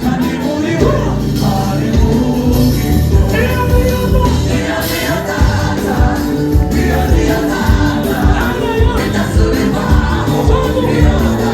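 Gospel choir singing a worship song over a band, with a steady bass-heavy beat.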